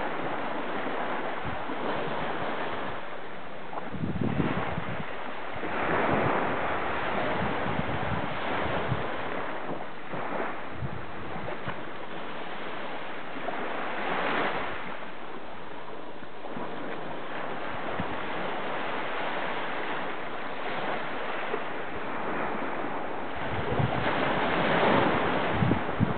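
Small Atlantic waves breaking and washing up a sandy beach, the surf swelling every few seconds and loudest near the end, with wind rumbling on the microphone.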